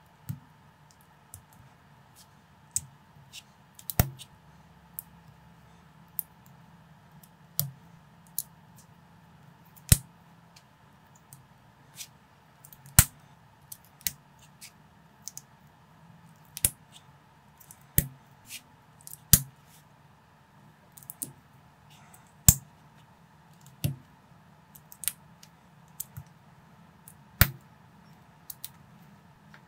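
Small plastic LEGO-compatible building bricks being snapped together and handled: irregular sharp clicks, roughly one every second or two, some much louder than others, over a faint steady hum.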